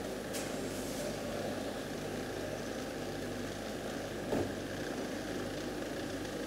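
Steady curbside traffic ambience: idling vehicle engines with a low hum, and one brief knock about four seconds in.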